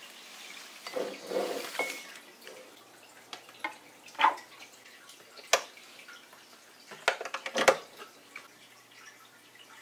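A vinyl record slid out of its paper inner sleeve with a papery rustle, then several sharp handling clicks from the Technics turntable and receiver controls, over the faint trickle of an aquarium.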